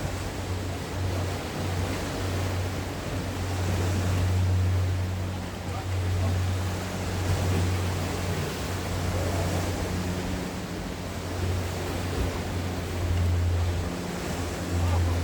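Sea waves washing against the shore in a steady rush of surf that swells and eases, with a low steady hum underneath that comes and goes.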